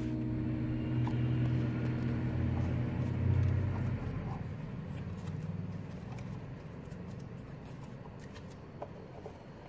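Background music of held low notes that fades out about four seconds in, leaving faint room noise with a few light clicks.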